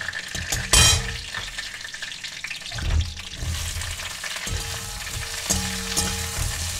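Vegetables sizzling as they fry in oil in a pan, stirred with a utensil that scrapes and knocks against the pan, loudest about a second in.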